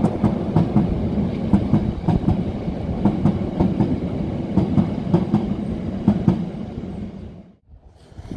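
Freight train of open hopper wagons rolling past below, a heavy rumble with a run of sharp wheel clacks over the rail joints. The sound dies away about seven seconds in as the last wagon recedes.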